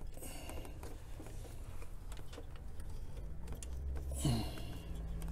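Faint clicks and taps of pliers working a stuck fuel line loose from a fuel pressure regulator, with a low rumble growing from about three seconds in.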